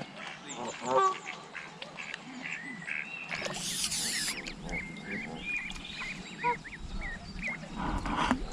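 A duck quacking about a second in, with small birds chirping around it and a brief hiss a little past the middle.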